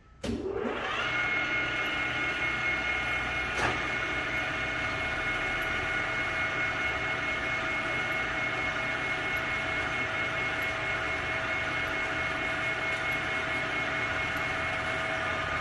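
Schaerer engine lathe starting up, its whine rising and settling within a second, then running steadily with an even multi-tone whine as the axle housing turns in the chuck. One sharp click about three and a half seconds in.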